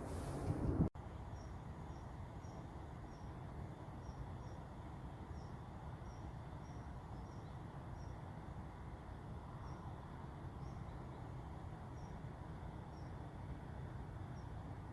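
A small bird chirping: short, high notes repeated irregularly, roughly once or twice a second, over a steady low outdoor hum. A brief louder rush of noise cuts off abruptly about a second in.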